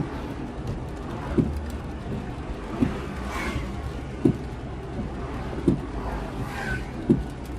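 Inside a Fiat city car with the engine running low and steady, the windscreen wiper thumps at the end of each stroke about every one and a half seconds. Two cars pass outside through the open window, swelling and fading with wet tyre hiss, one around the middle and one near the end.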